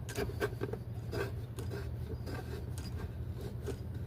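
Faint, irregular clicks and light scraping of hands and a tool working the EGR tube fitting as it is threaded back on, over a steady low hum.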